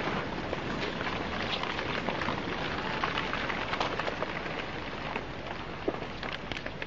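Landslide coming down: a steady rushing noise full of crackles and snaps as earth, rock and trees crash down the slope, easing slightly near the end.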